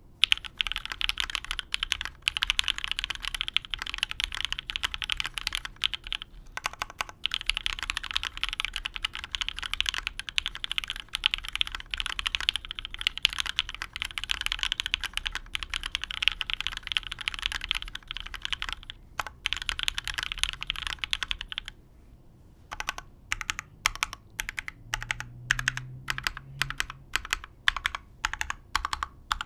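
Typing on a custom dnworks x zekk.works Ogre mechanical keyboard with lubed Gateron Ink linear switches, GMK keycaps and a UHMWPE plate on an O-ring mount. It is fast, continuous typing with a couple of brief pauses. About 22 seconds in it stops, then resumes as slower, separate keystrokes, about two or three a second.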